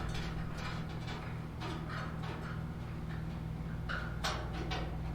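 Scattered light clicks and rustles over a steady low hum.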